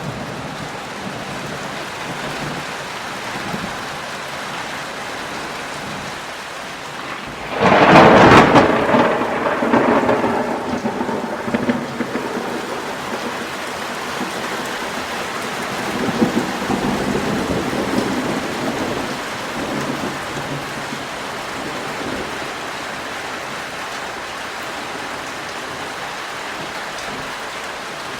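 Steady heavy rain falling, with a sudden loud thunderclap about a quarter of the way in that rumbles away over several seconds, and a softer roll of thunder around the middle.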